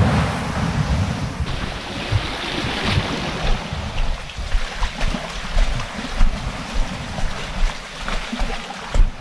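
Small waves washing and lapping against a rocky shoreline, with wind buffeting the microphone and a few light knocks scattered through it.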